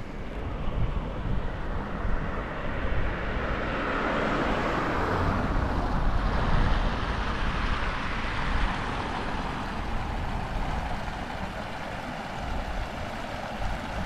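A road vehicle passing: a rushing noise that swells to a peak about halfway through and fades away again, over a steady low rumble.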